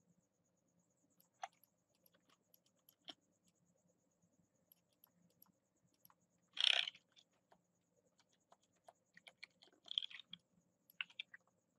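Sparse computer keyboard keystrokes and mouse clicks, with a louder, longer burst of noise about seven seconds in and a cluster of quick taps near the end.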